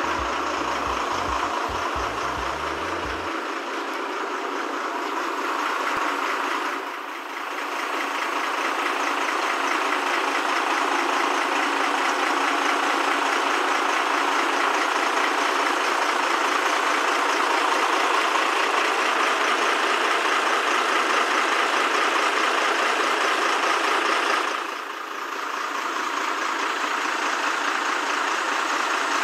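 Truck-mounted hydraulic crane running steadily as it hoists a motorboat, its engine driving the hydraulics under load. The sound briefly eases off twice.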